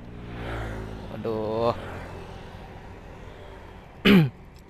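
A man's voice: a short exclamation ("waduh") about a second and a half in, then a loud, brief sound that slides down in pitch about four seconds in, over faint road noise.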